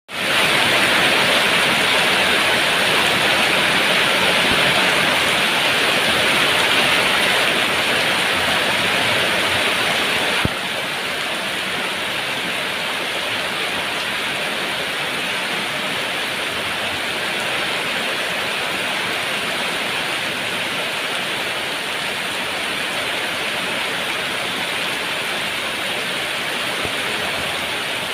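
Heavy rain pouring down steadily; the sound drops a little in level suddenly about ten seconds in.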